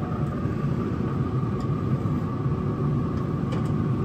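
Pellet grill's fan running: a steady hum with a thin whine over it.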